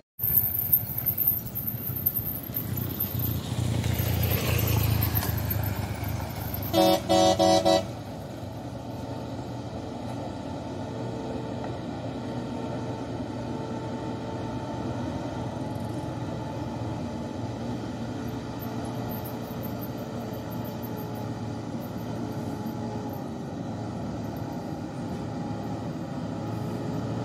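A heavy truck's engine and tyres on the gravel road, loud at first, then a horn gives two short blasts about seven seconds in. After that comes the quieter, steady running of a Mitsubishi Fuso Fighter truck's diesel engine as it comes up the dirt road, growing a little louder near the end.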